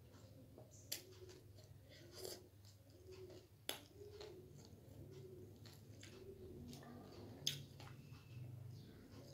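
A person eating a crunchy snack close to the microphone: quiet chewing with a few sharp clicks and crunches, the loudest about seven and a half seconds in.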